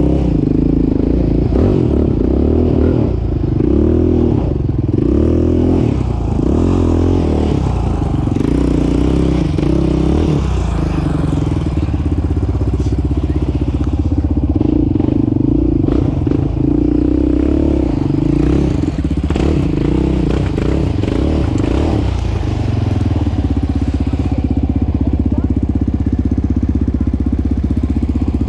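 Yamaha Raptor 700 quad's single-cylinder four-stroke engine running at low speed, the throttle opening and closing so the engine note rises and falls, with scattered knocks and clatter. The note steadies about two-thirds of the way through.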